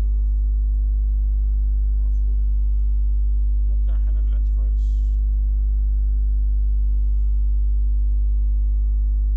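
Steady low electrical mains hum. A brief faint voice can be heard about four seconds in.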